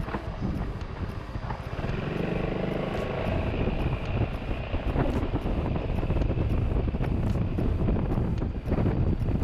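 Motorcycle engine running while riding, with its note rising about two seconds in.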